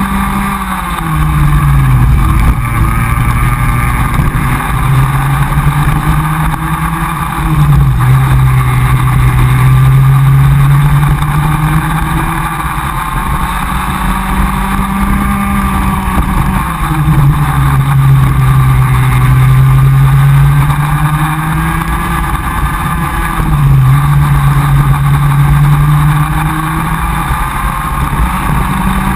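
Comer cadet kart's two-stroke engine at racing speed, heard onboard. Its note drops sharply about four times as the driver lifts off for corners, then climbs steadily again as the kart accelerates out.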